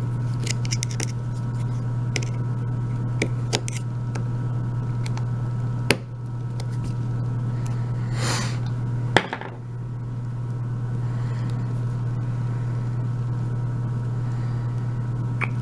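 Small metal clicks and taps from a euro lock cylinder being handled and taken apart, with two sharper clicks about six and nine seconds in and a brief scrape just before the second, over a steady low hum.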